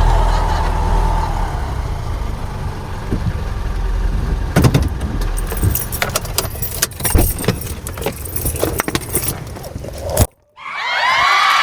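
A low steady rumble, then a run of sharp clicks and rattles that cuts off abruptly about ten seconds in; music starts near the end.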